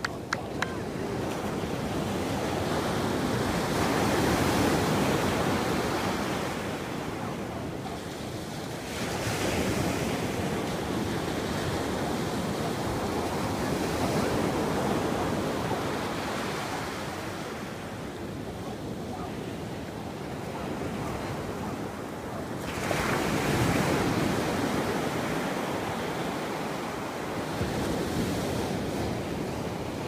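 North Sea surf on a sandy beach: waves break and wash up the sand in a steady rush that swells and fades every five seconds or so, with wind buffeting the microphone. A few brief clicks right at the start.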